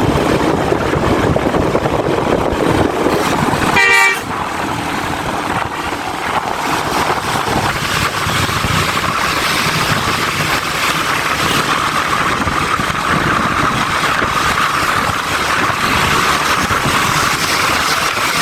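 Steady road and wind noise of a vehicle on the move, with one short horn toot about four seconds in; after it the noise is slightly quieter and steady.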